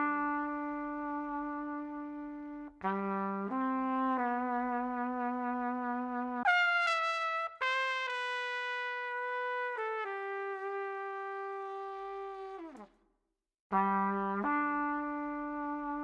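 Background music: a slow melody of long held notes on a brass-like instrument, with a brief pause about thirteen seconds in.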